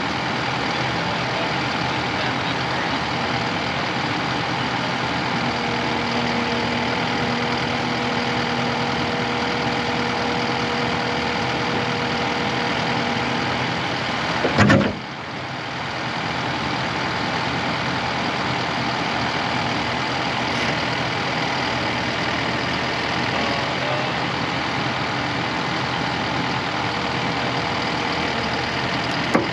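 Takeuchi compact track loader's diesel engine running steadily, with a held whining tone for several seconds in the middle. About halfway through there is one loud, sharp metallic knock.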